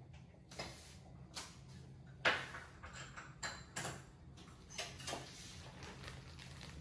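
Scattered light knocks and taps from marshmallows on lollipop sticks being handled and set upright on a tabletop, about eight in all, the loudest about two seconds in.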